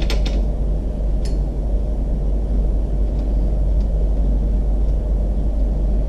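Steady low rumble, with a few sharp metal clicks in the first second and a half and fainter ones later, as a BMX pedal is threaded onto the crank arm by hand.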